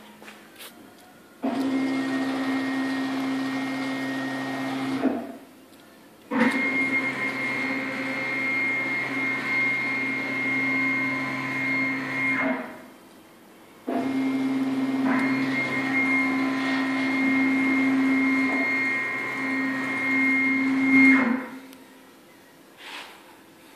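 CNC router running in three spells of several seconds each, a steady motor whine with a high tone over a low hum. Each spell starts abruptly and winds down, with short pauses between.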